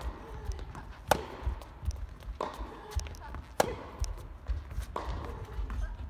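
Tennis rally: a ball struck back and forth with rackets, a sharp hit about every second and a quarter, with lighter ball bounces between the strokes.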